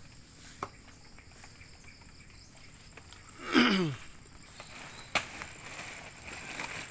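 A single short voiced cry that falls steeply in pitch, about halfway through, then a sharp crack about five seconds in, over faint, steady, high insect buzzing.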